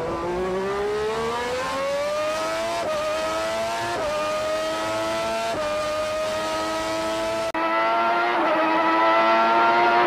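Onboard sound of a Formula One Honda V12 at full throttle, its pitch climbing as it accelerates, with three quick upshifts. About three-quarters of the way through, a short dropout, then a louder Ferrari V12 running at high revs with one more upshift.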